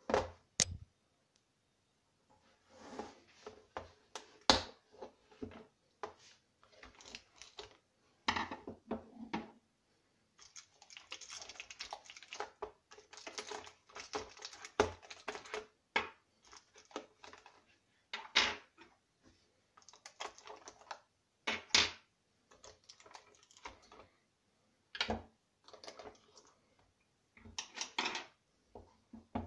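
A 43-piece screwdriver set being unpacked from its clear plastic case: irregular clicks and snaps of the plastic case and tray, with light metallic clatter of bits, sockets and the T-handle driver being lifted out and set down. A few sharper snaps stand out among the handling noise.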